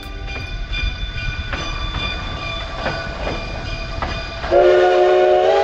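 Narrow-gauge steam locomotive No. 168, a Baldwin 4-6-0, running with a low rumble and a few scattered clanks. About four and a half seconds in, its steam whistle blows loudly: several tones held together in a chord that steps slightly up in pitch near the end.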